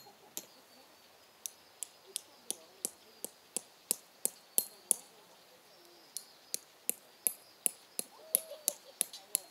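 A metal hammer driving tent pegs: sharp ringing clinks, about three blows a second, in runs broken by two short pauses.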